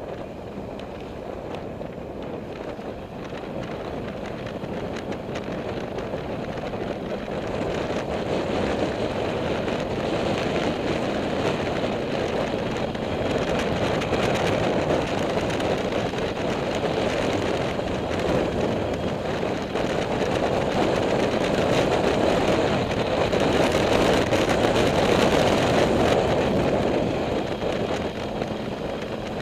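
Motorcycle on the move: wind rushing over the microphone with the engine running underneath. It grows louder over the first several seconds, holds steady, and eases slightly near the end.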